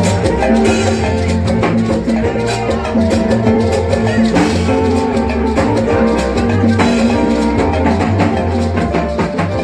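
Live band playing an instrumental passage, with a drum kit keeping a steady beat over a repeating bass line.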